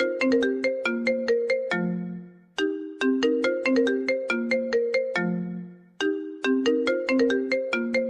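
Smartphone ringtone: a short melody of bright, struck bell-like notes that loops about every three and a half seconds, each pass ending on a held low note.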